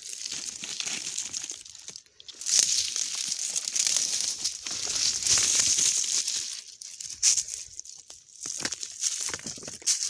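Footsteps crunching and rustling through dry fallen leaves and twigs, in uneven bursts with short pauses about two seconds in and again near the seven-to-eight-second mark.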